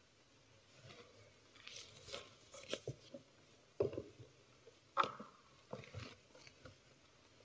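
Scattered, irregular knocks, clicks and faint rustling from people moving about a quiet church: steps, shuffling and handling of books or pews. The loudest knocks come about four and five seconds in.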